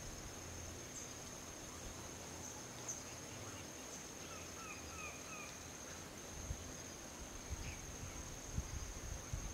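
Forest ambience: a steady high-pitched insect trill, with a quick run of four bird chirps about four seconds in. There are a few soft low bumps near the end.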